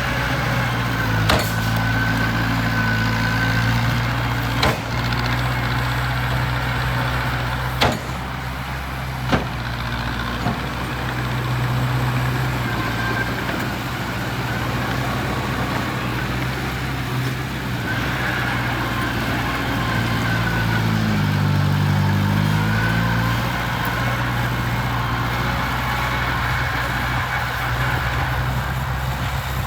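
Heavy diesel engine of a construction machine running steadily, with a few sharp metallic knocks in the first ten seconds. The engine dips in pitch and rises again about three quarters of the way through.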